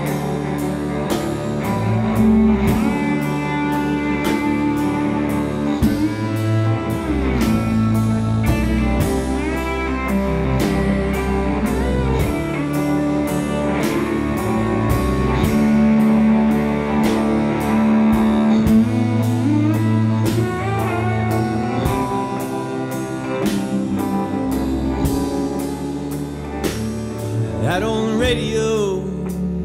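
A live alt-country band plays an instrumental break: a steel guitar slides over electric guitar, upright bass and a drum kit keeping a steady beat.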